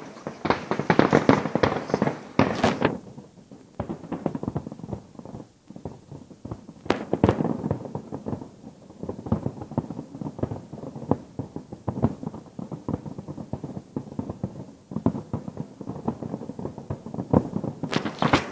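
Distant fireworks display: a dense barrage of bangs and crackle that thins to scattered reports after about three seconds, then builds again into rapid crackling near the end.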